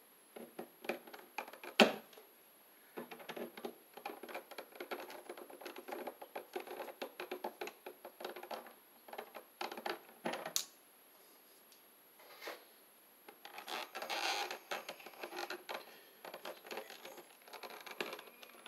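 Pliers clicking and scraping as a red wire nut is twisted tight onto three bare copper ground wires, with one sharp click about two seconds in. Near the end, stiff wires scrape and rustle as they are pushed up into a plastic junction box.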